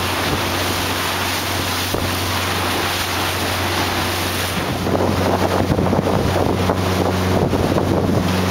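Small motor boat running steadily under way, a low engine hum under water rushing past the hull and wind buffeting the microphone. The wind noise gets rougher and gustier about halfway through.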